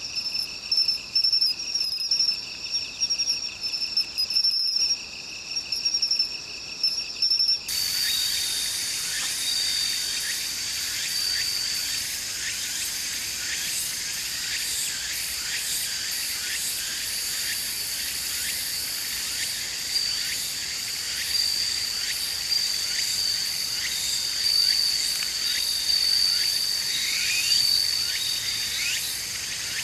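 Crickets and other grassland insects singing: first a close, pulsing trill held at two steady high pitches, then, switching abruptly about eight seconds in, a dense steady chorus of many insects with one note standing out above it. A few short rising notes come through near the end.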